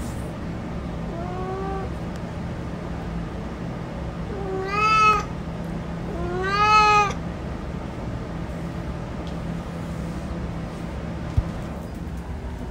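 Male domestic cat meowing three times: a faint first meow, then two louder meows, each rising then falling in pitch, over a steady low hum.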